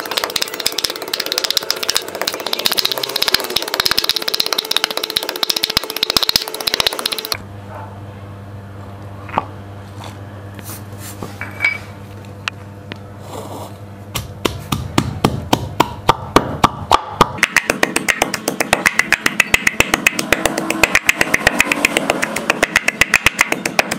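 Pestle pounding garlic cloves, and then garlic with chopped red chillies, in a wooden mortar: quick repeated knocks, several a second. There is a pause of several seconds with only a few knocks about a third of the way in, before steady pounding resumes.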